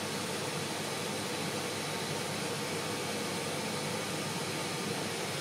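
Steady background hiss with a faint hum, even throughout, with no distinct events.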